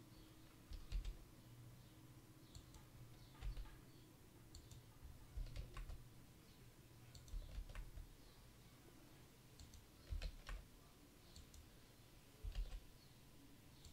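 Computer mouse and keyboard clicks, a dozen or so short sharp clicks at irregular intervals, some in quick pairs, over a faint steady low hum.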